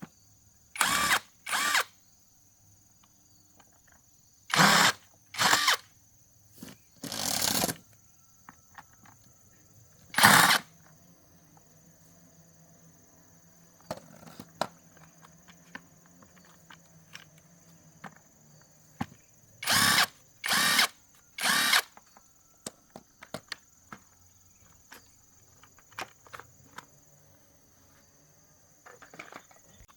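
Power drill run in short trigger bursts: two near the start, three more around five to eight seconds in, one at about ten seconds, and three close together around twenty seconds. Light clicks and knocks of parts being handled fall between the bursts, over a faint steady high whine.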